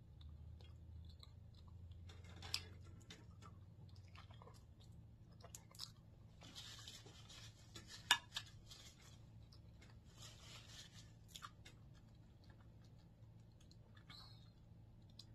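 Faint close-up chewing of a bite of boiled egg, with small wet mouth clicks. Two brief soft rustles come near the middle as a paper napkin wipes the mouth. A low steady hum runs underneath.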